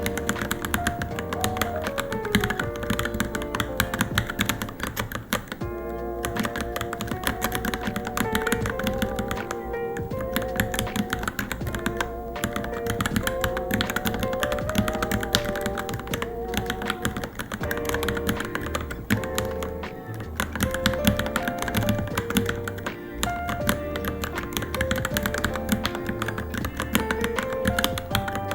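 Steady, fast typing on a Varmilo Minilo mechanical keyboard, a dense run of key clacks, over background music with a melodic tune.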